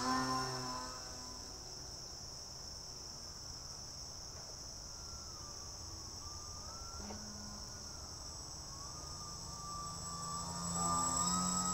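Motor whine of a radio-controlled boat, falling in pitch and fading as it runs away, wavering faintly in the distance, then rising and growing louder near the end as it comes back. A steady high-pitched insect chorus runs underneath.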